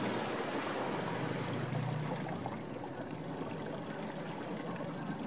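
A small outboard motor's steady hum cuts off at the start, leaving water trickling and lapping against the boat's hull, with a brief low hum about two seconds in.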